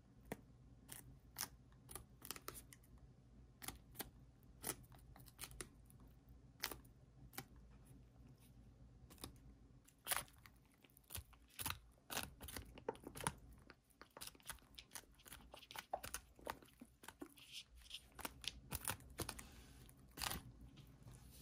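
Serama bantam roosters pecking at napa cabbage: irregular crisp clicks of beaks snapping and tearing at the leaves, with crunching, coming faster about halfway in and again near the end, over a faint low steady hum.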